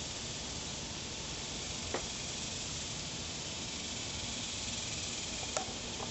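Steady, even hiss with no clear source, with a faint click about two seconds in and another near the end.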